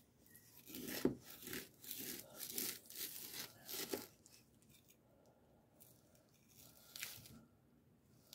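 Knife sawing through a partially frozen chicken breast on a cutting board: a quick run of strokes for about three seconds, then one more stroke a few seconds later.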